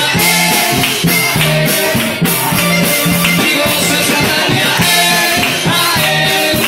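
Live band playing an upbeat song on accordion, guitars and drum kit, with a steady drumbeat.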